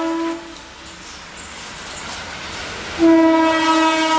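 Electric locomotive's horn sounding twice as a passenger train comes through the station: a long steady blast that stops about half a second in, then another, louder one starting about three seconds in. The train's rumble fills the gap between them.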